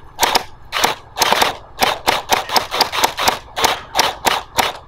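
Electric gel blaster (J10 JM ACR) firing a rapid string of single shots, about three a second, each a sharp snap from the blaster's motor-driven gearbox and piston.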